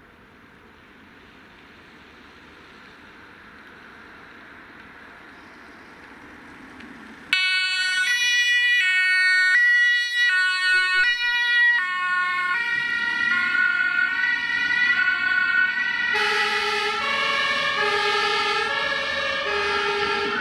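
German two-tone emergency-vehicle siren (Martinshorn) switched on about seven seconds in, stepping between two pitches roughly every half second. Before that, faint vehicle noise grows slowly as the emergency vehicle approaches, and the siren gets louder again about three-quarters of the way in.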